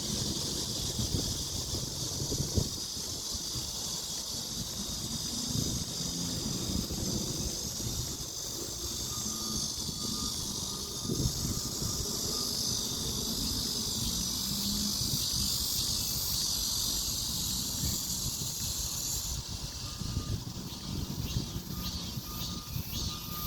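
Outdoor nature ambience: a steady high insect chorus, with wind rumbling on the microphone. About 20 seconds in, the chorus gives way to a faster pulsing insect call.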